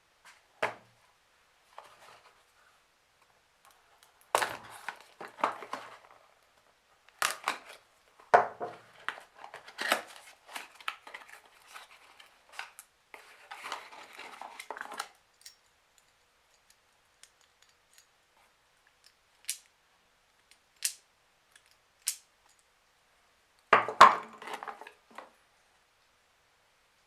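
Irregular handling sounds from workshop work: rustling and scraping with scattered sharp clicks and knocks, busiest for the first half and loudest in a short cluster of knocks near the end.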